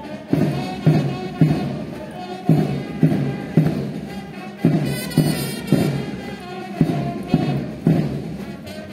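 Military band playing a march, with a bass drum beat about twice a second setting the marching pace.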